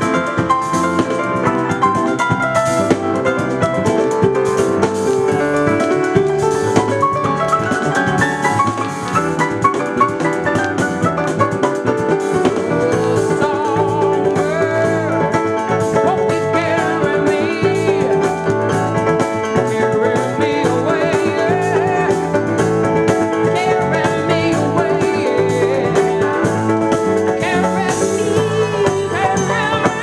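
Jazz band recording playing a steady groove, with keyboards, bass and drum kit.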